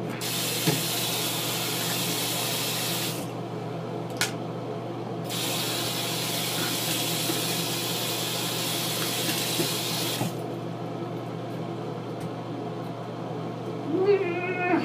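Bathroom sink tap running into the basin in two spells, about three seconds and then about five, with a short break between. The steady hum of a bathroom exhaust fan runs underneath.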